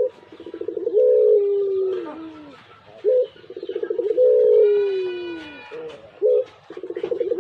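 A pugeru, the hybrid of a zebra dove and a collared dove, cooing in its long song. The phrase comes about every three seconds: a short note, a quick stuttering run, then a long coo that slides down in pitch.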